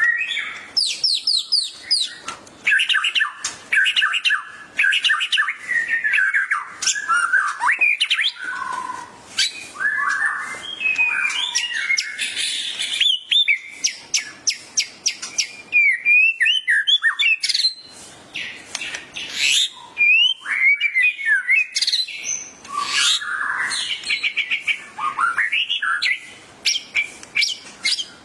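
Murai songbird (Copsychus) singing a long, varied song of sliding whistles, fast runs of sharp chip notes and harsh rasping phrases, with only brief pauses.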